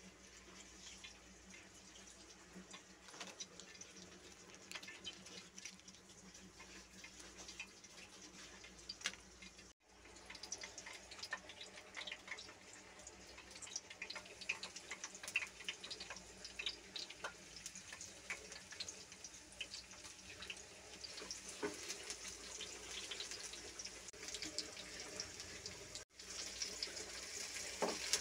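Faint sizzling and crackling of fat heating in a frying pan, with scattered small pops that grow denser and a little louder as it goes on. The sound cuts out briefly twice, and near the end a spatula stirs chopped onion through the fat.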